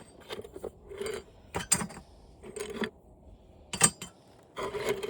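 Small scrap steel pieces from a dismantled TV clinking and clattering as they are handled and slid off a small scale, in a series of short metallic clanks, the sharpest about four seconds in.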